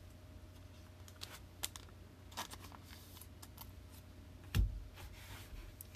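Trading cards being handled on a table: scattered light clicks and ticks, a soft rustle, and a dull thump about four and a half seconds in.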